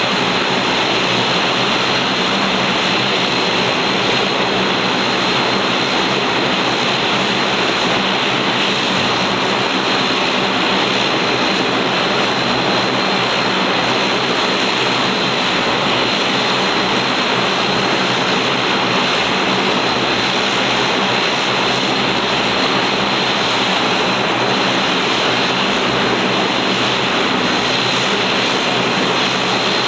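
Bombardier DHC-8-402Q Dash 8's twin Pratt & Whitney PW150A turboprops running steadily, a loud even propeller drone with a low pitched hum that does not change.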